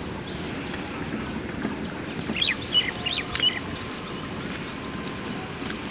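Steady outdoor background noise, with a bird giving a quick run of short chirps about two to three and a half seconds in.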